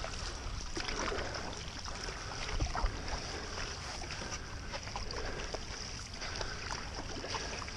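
Stand-up paddle strokes dipping and pulling through calm water, with the board's nose cutting small ripples and light splashing throughout, over a low rumble of wind on the microphone.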